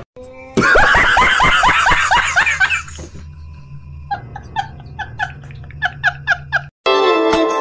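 Laughter: a loud run of quick falling 'ha' notes, about four a second, followed by a quieter run of short high chirping notes. Music starts near the end.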